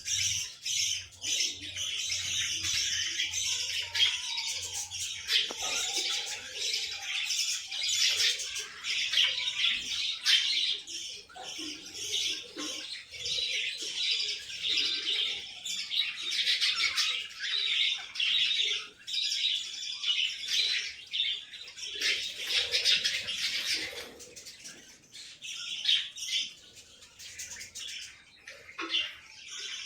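Lovebirds chattering in a dense run of rapid, shrill chirps and squawks, which thin out briefly a little past twenty seconds in.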